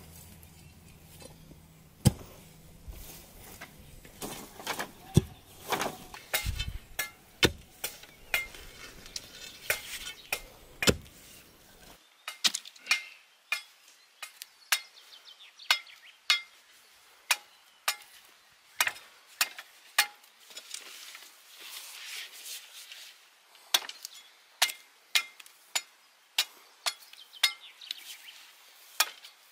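Sharp wooden knocks and chops from a curved sickle-like blade hacking at the end of a wooden shelter pole to shape it. They come irregularly at first, then about once a second.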